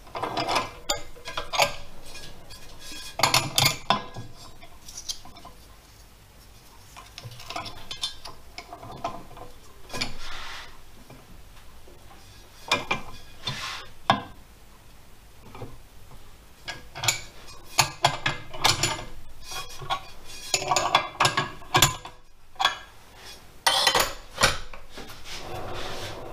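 A four-jaw lathe chuck being tightened onto an aluminium alloy wheel rim with a T-handle chuck key: irregular metallic clinks, knocks and scrapes from the key, the jaws and the copper pads against the rim.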